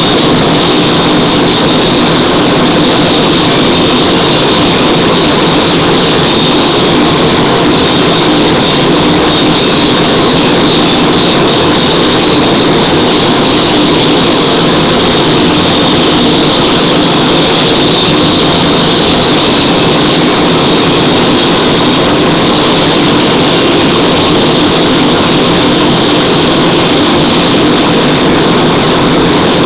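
Loud, steady rushing noise that does not change.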